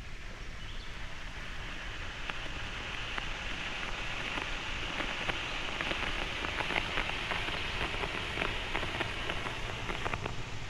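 Blue smoke bomb (smoke grenade) burning after its pin is pulled: a steady hiss with many small crackles, growing a little louder over the first few seconds as it pours out thick smoke.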